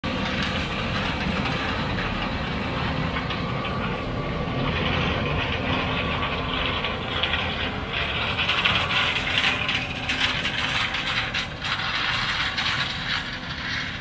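Farm harvest machinery running steadily, with a continuous low rumble and dense mechanical rattling and clatter.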